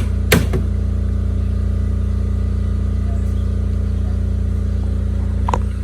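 Small portable generator engine running steadily under load, with a hammer blow on the fence work just after the start.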